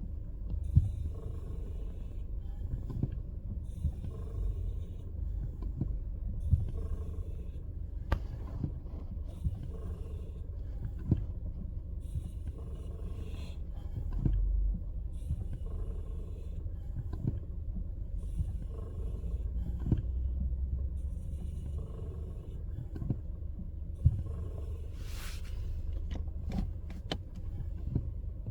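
Skoda Scala 1.5 TSI brake pedal being pressed and released over and over in Park, each press bringing a short hissing noise with sharp clicks, about every one to two seconds, over a steady low rumble. This is the unexplained noise the owner hears when braking in Park.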